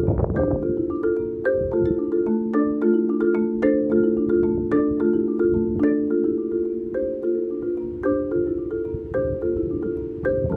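Marimba played with four yarn mallets, a continuous flowing pattern of struck, ringing notes. Wind rumbles on the microphone underneath, gusting harder at the start and near the end.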